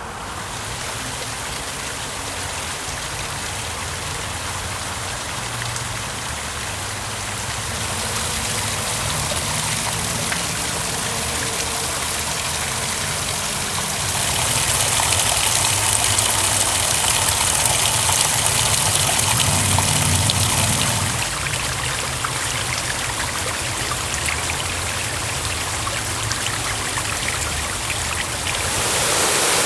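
Flowing stream water rushing and splashing over rocks in a steady wash of noise. It grows louder in steps about a third and halfway through, drops back near two-thirds of the way, and rises again right at the end.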